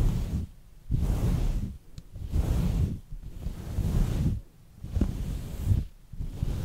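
Chenille microfiber duster rubbed over a microphone grille: about six deep, rustling strokes, each around a second long, with short pauses between them.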